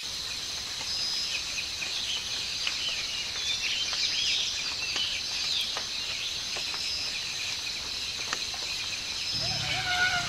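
Forest ambience: a steady insect drone with birds chirping over it, and a short high call repeating every few seconds.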